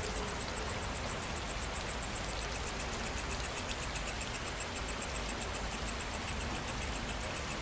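Steady rain falling, an even hiss, with insects chirping in a rapid high-pitched pulse throughout and a second, lower insect chirp joining about halfway through.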